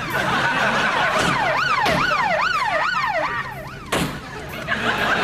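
Police car siren wailing up and down, about two sweeps a second, cutting off abruptly about four seconds in.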